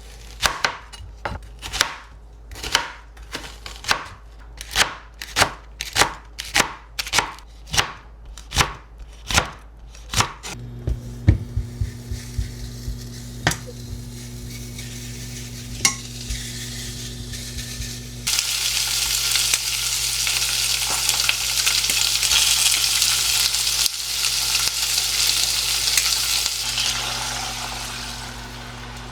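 Knife chopping on a cutting board, about two strokes a second for some ten seconds. Then a steady low hum with a few light clicks, and from about halfway through, a loud steady rush of running water that stops shortly before the end.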